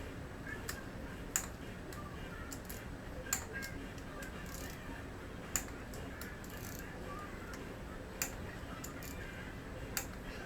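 Click-type torque wrench clicking as it breaks over at its set torque on rocker-arm bolts of a 6.0 Powerstroke head: single sharp clicks about every two to three seconds, one per bolt, five in all.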